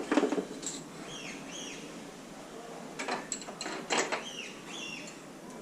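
Metal clinks and knocks of hand tools and engine parts being handled during motorcycle engine disassembly. The loudest cluster comes at the start, with another about three seconds in. A small bird chirps several times in the background.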